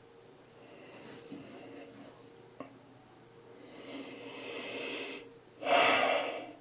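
One short, faint click about two and a half seconds in, from the folding knife being handled. Then a person breathes out close to the microphone: a rising rush, followed near the end by a loud exhale about a second long.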